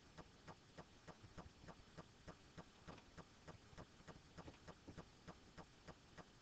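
Near silence with a faint, even ticking of about three clicks a second over low background noise.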